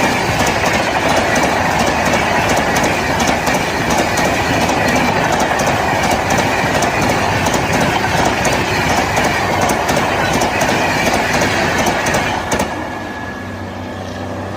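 Passenger express coaches passing at full speed, their wheels clattering loudly over the rail joints. The clatter drops off suddenly about 12 seconds in as the last coach goes by, leaving a fainter rumble.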